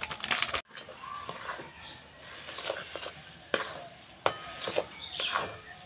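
Plastic milk powder packet crinkling briefly as it is emptied. Then a metal spatula stirs and scrapes grated coconut in an aluminium pan, with a few sharp clinks against the pan's side.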